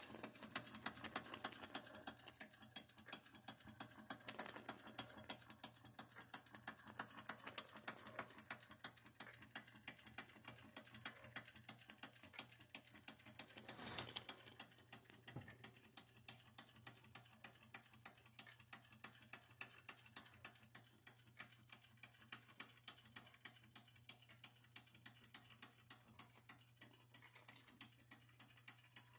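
Wilesco D11 live steam engine running and driving a model pump jack through reduction gears: faint, rapid, regular clicking over a low steady hum, briefly louder about halfway through.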